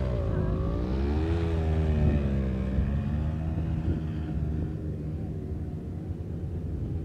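Small quad bike (ATV) engine running on sand, its revs rising and falling for the first few seconds, then settling to a steadier, slightly quieter run.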